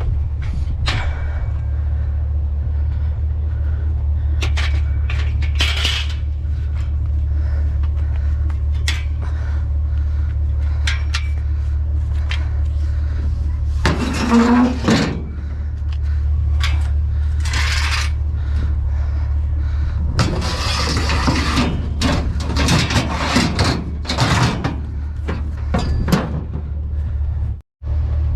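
Steady low engine rumble under scattered metallic clanks and rattles, with longer bouts of clattering about 14 seconds in and again from about 20 to 25 seconds in, as of scrap metal being handled.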